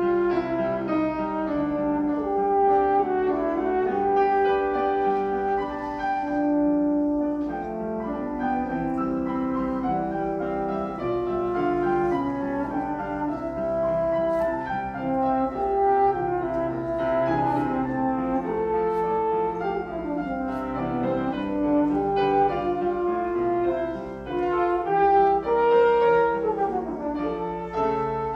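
French horn playing a solo melody of sustained notes, accompanied by a grand piano.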